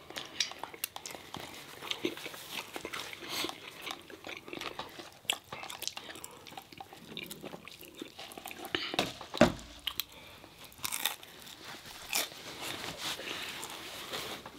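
Close-up chewing and crunching of fried chicken and fries, a run of short irregular clicks and crunches, with one sharp knock about two-thirds of the way through that is the loudest sound.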